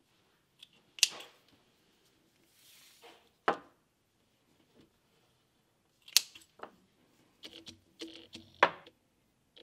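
Small scissors and hand tools handled at a leather workbench: about half a dozen sharp clicks and taps, spread unevenly, as thread is cut from a spool and tools are picked up and set down.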